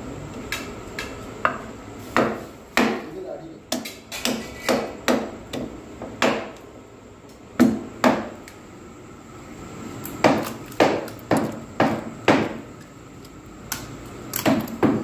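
Pestle pounding a lump of jaggery in a wooden mortar: sharp knocks in runs of several strikes, with short pauses between the runs.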